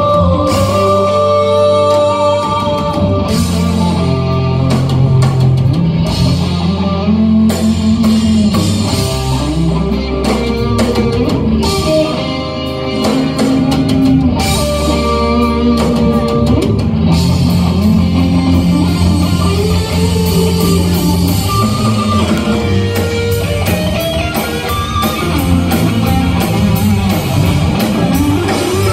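Live rock band playing: electric guitars over bass guitar and drum kit, a melodic guitar line sliding up and down on top, heard from the audience.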